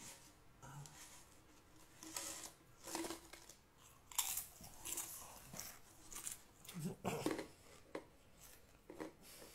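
Close-up mouth and handling noises on a phone's microphone: irregular crunches, clicks and rustles from a man drinking from a bottle and moving the phone against his clothes, with no speech.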